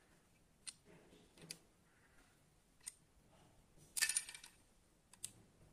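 Diecast metal toy car being handled in the hands: a few sharp small clicks, and a louder brief clatter of clicks about four seconds in.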